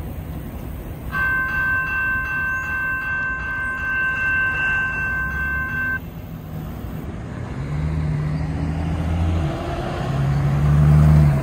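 Railroad crossing bell dinging in a rapid steady rhythm from about a second in, cutting off suddenly at about six seconds as the crossing gates lift. Then cars drive across the crossing, their engines rising in pitch as they pull away and loudest near the end.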